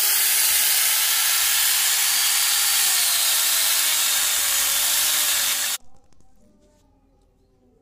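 Electric angle grinder (Maktec) driving a 12-inch chainsaw converter bar, its chain cutting through a log: a loud, steady hissing whine whose pitch sags a little as the motor is loaded in the cut. The sound ends abruptly about six seconds in.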